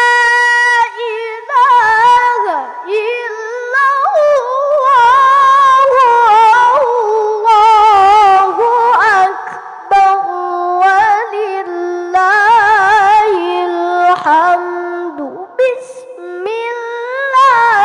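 A boy reciting the Quran in melodic tilawah style into a handheld microphone: a high voice held out in long ornamented phrases with quick wavering trills, broken by short pauses for breath.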